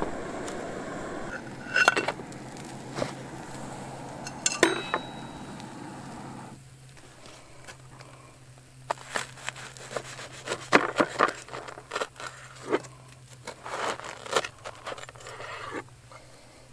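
Small camp stove burner hissing steadily, then cut off about six seconds in. After that come a run of short clicks and scrapes, as of utensils on a pan.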